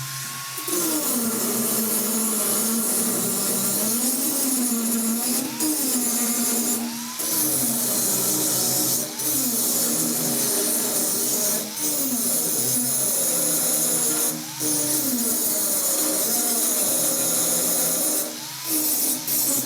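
Angle grinder grinding down the edges and bolts of a steel table frame. Its motor pitch drops each time the disc bears on the metal and climbs back as it eases off, over and over, with short lifts off the work every few seconds, over a steady grinding hiss.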